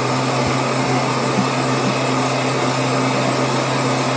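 Handheld craft heat gun blowing steadily, a rush of air over a low steady motor hum, drying wet paint on a wooden cutout.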